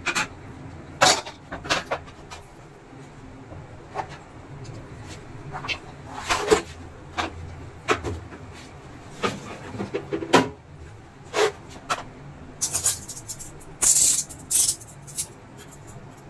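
Irregular clicks, knocks and short scrapes of an induction cooker's plastic top housing and switch panel being handled, fitted and set down on a bench, with a cluster of sharper scraping clicks near the end.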